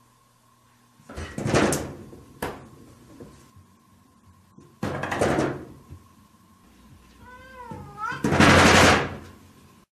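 Three loud rattling bangs from a frosted-glass sliding door as it is struck, about one, five and eight and a half seconds in, the last the loudest. Just before the last bang a cat gives one short meow that wavers up and down in pitch.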